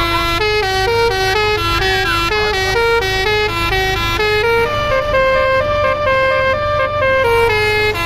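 Bus telolet horn playing a quick melody of stepped musical notes, about four a second, moving to longer held notes about halfway through. A steady low engine hum runs underneath.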